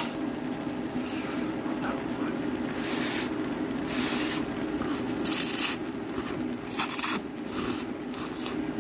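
A man slurping ramen noodles off metal chopsticks: two loud slurps, about five and seven seconds in, with smaller mouth noises between, over a steady low hum.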